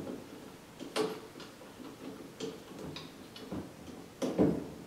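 Irregular small clicks and knocks of hands turning a 10-32 bolt finger tight through an ArmourDillo cam protector's top plate and lower body on a bow limb, with two louder knocks, about a second in and near the end.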